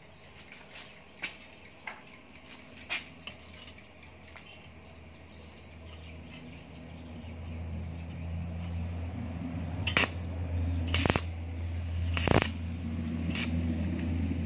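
Arc (stick) welder tack-welding steel rod to a square-tube frame: a low electric hum that builds from about six seconds in, with three sharp crackles of the arc striking in the last few seconds. A few light metal clicks come in the first few seconds.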